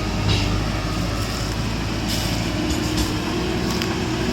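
A heavy vehicle's engine running steadily, with a few light knocks.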